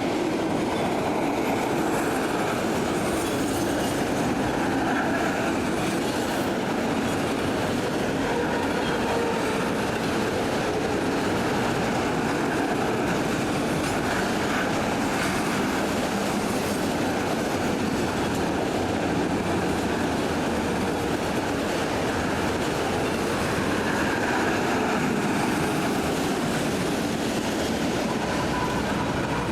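Freight train rolling steadily past at a grade crossing, a continuous noise of cars running on the rails.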